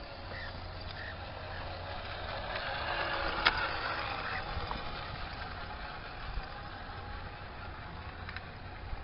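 Tamiya 1/14 radio-controlled truck driving, its motor and gears running with a steady whirr that swells and then fades, and a sharp click about three and a half seconds in.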